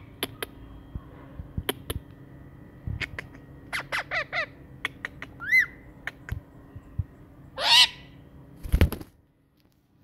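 Rose-ringed parakeet giving short squawks among scattered sharp clicks: a quick run of falling calls about four seconds in, a single rising-then-falling squawk a second later, and a longer call near eight seconds. A loud low thump follows soon after, then near silence.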